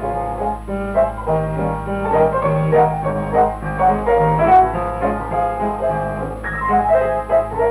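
Film score music led by piano, a quick run of notes over a lower accompaniment, with a steady low hum underneath.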